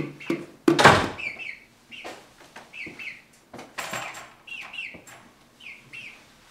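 Chicken clucking over and over, short calls that slide down in pitch, with a loud knock about a second in.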